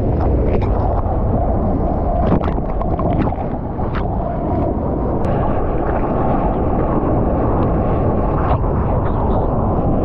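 Surf water rushing and splashing against a waterproofed GoPro on a bodyboard, with wind buffeting the microphone: a steady low rush with scattered short splash crackles.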